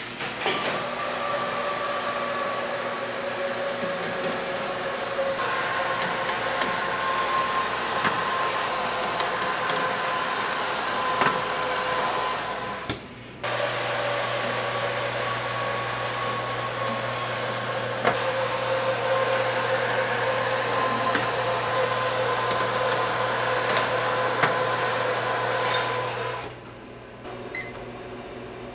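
Convection oven's fan running with a steady whir and hum, with a few sharp clicks of metal baking trays being handled. The whir breaks off briefly near the middle and drops away near the end.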